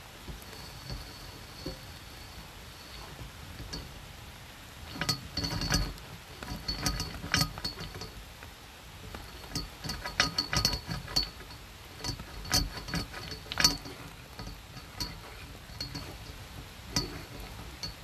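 Drain inspection camera head and its push rod clinking and knocking against the inside of a drain pipe as it is fed along: irregular sharp taps, some in quick clusters, with a faint high tone coming and going behind them.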